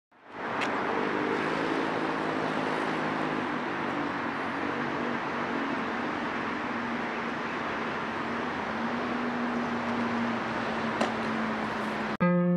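Steady outdoor background hiss with a faint low hum under it. Near the end it cuts off suddenly and guitar music starts.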